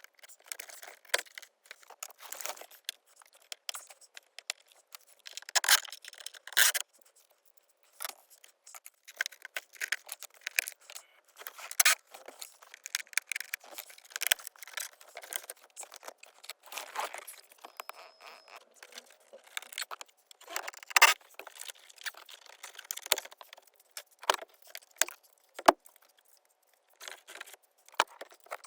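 Irregular metallic clicks, rattles and short scrapes of small hand tools and screws being handled while interior trim is worked loose.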